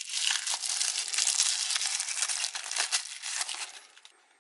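Plastic packaging crinkling and crackling as it is handled, a dense run of crackles that dies away near the end.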